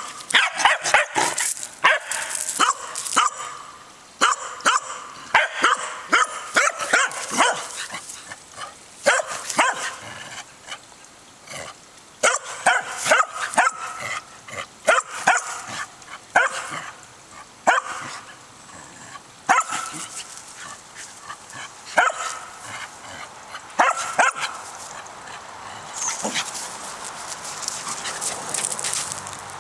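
Corgi barking over and over in quick runs of short, sharp play barks, urging the other dog to play. Near the end the barks give way to a rougher, noisier stretch as the two dogs wrestle.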